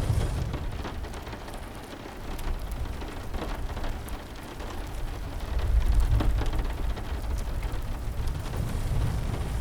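Steady rain, with a low rumble that swells at the start and again about six seconds in, and faint scattered crackles of a fire.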